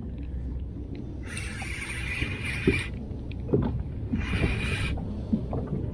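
Spinning fishing reel whirring in two spells, one of about a second and a half, then a shorter one near the end, while a hooked bass is being fought. A steady low rumble runs underneath, with a few light knocks.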